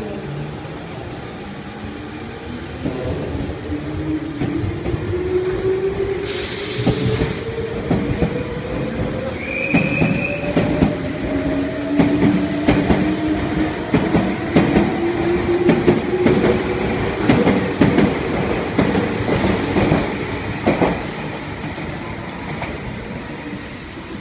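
Meitetsu limited-express electric train (1030/1230 series Panorama Super with an 1800 series) pulling away from the station. Its traction motors whine, rising in pitch as it gathers speed without wheel slip, while the wheels clack over the rail joints as the cars pass. The sound fades near the end as the train leaves.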